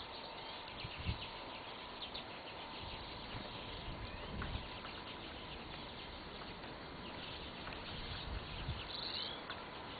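Small wild birds chirping and twittering in short, scattered calls over a steady outdoor hiss, with a few brief low thumps.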